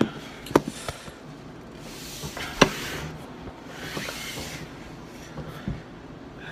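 Handling noise from the recording phone: two sharp knocks, a few lighter clicks and stretches of rubbing and rustling as a hand moves over it.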